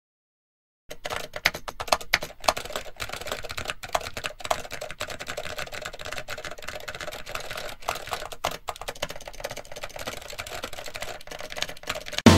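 Two people typing on laptop keyboards: a quick, irregular clatter of key clicks that starts about a second in.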